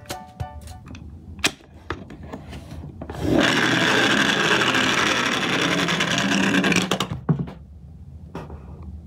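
Small toy garbage truck rolling down a plywood slope: a few light clicks as it is set down, then about four seconds of steady, loud rolling noise of its wheels on the wood, ending with a knock as it drops off the board's edge onto the table.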